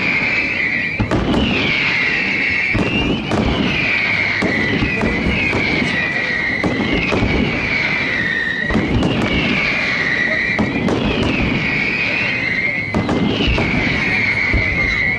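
Aerial fireworks display: a series of shrill whistles, each dropping in pitch and then levelling off, one every second or two, over steady crackling and the bangs of bursting shells.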